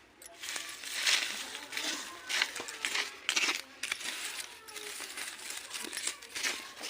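Irregular bursts of scraping and rustling handling noise, with small clicks and clinks.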